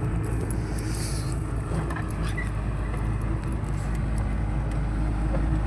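Heavy machine's diesel engine running steadily at a constant speed, a low even hum.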